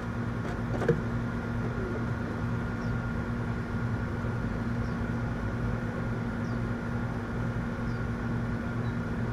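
Steady hum of running machinery, a low drone with a fainter higher whine over it, and one small click about a second in.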